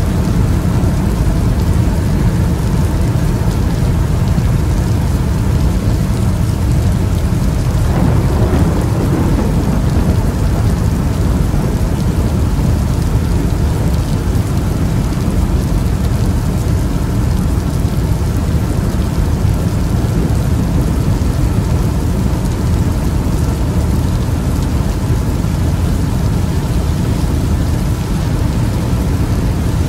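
Thunderstorm: steady rain with a continuous low rumble of thunder, swelling briefly about eight seconds in.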